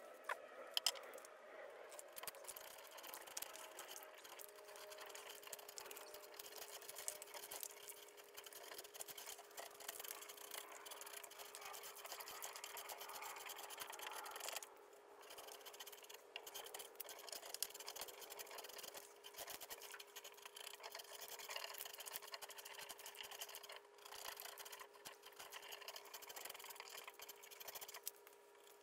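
Drawknife scraping and peeling bark off the live edge of a walnut slab in repeated strokes, with small crackles as bits of bark break loose and a brief pause about halfway through.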